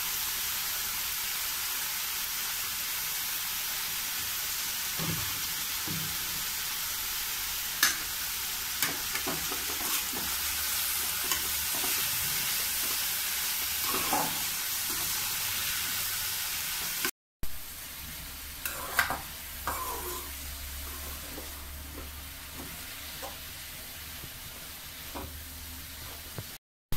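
Chopped bitter gourd sizzling as it fries in a metal kadai, with a perforated metal spatula scraping and clinking against the pan as it is stirred. The sizzle is steady and loud through the first half. After a short break it carries on quieter, with more scrapes and knocks from the spatula. The gourd is being sautéed until it dries out for pickle.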